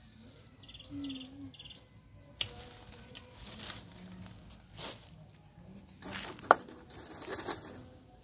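Leaves and branches of a fig tree rustling and shaking as it is pruned by hand, with a few sharp snaps or snips, the loudest about six and a half seconds in.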